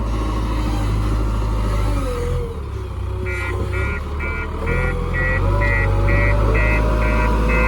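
JCB 3DX backhoe loader's diesel engine running under working load, its pitch dipping briefly about two seconds in. From about three seconds in, a reversing alarm beeps steadily about twice a second over the engine.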